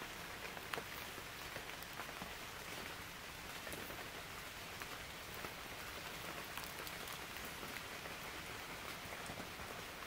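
Rain falling: an even hiss scattered with many small drop ticks.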